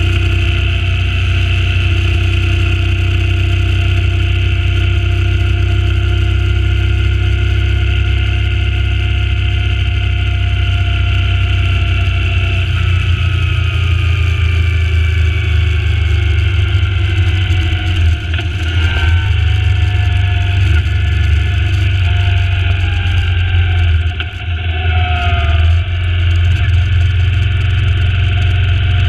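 Suzuki Intruder C800's V-twin engine running on the road under a heavy wind rumble on the microphone. Its note falls slowly through the second half, with two brief dips in level.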